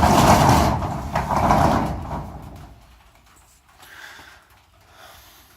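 Large shop door sliding shut, a loud rolling rumble that dies away after about two seconds.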